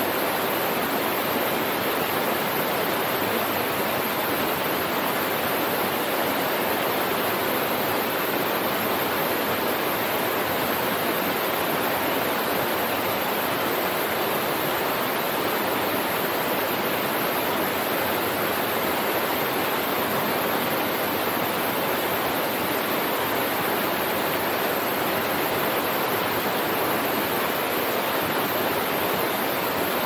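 Small waterfall cascading over rocks into a pool: a steady, even rush of falling water.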